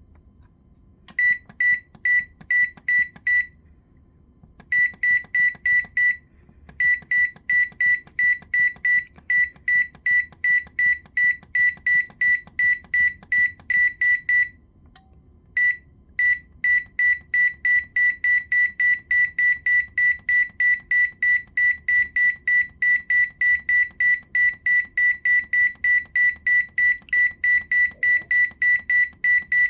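Whirlpool 8302319 oven range control board's beeper sounding rapid short high beeps, about three a second, in runs broken by a few brief pauses.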